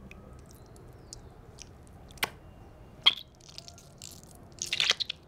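Mesh squishy stress ball squeezed by hand, its gel beads pressing through the net with small squelching, crackling clicks. There is a sharp click just over two seconds in, another about three seconds in, and a quick cluster of squelches near the end.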